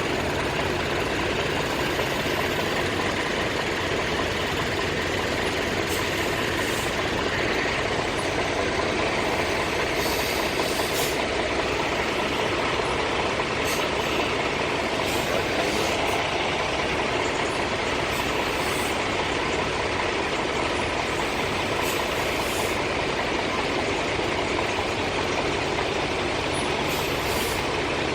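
A semi-truck's diesel engine running steadily at low speed while the rig is pulled forward and straightened up during backing practice.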